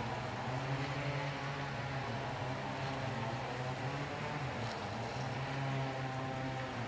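A motor running with a steady low hum over a light hiss.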